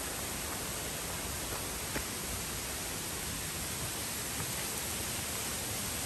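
Steady, even rush of a waterfall, with one faint tick about two seconds in.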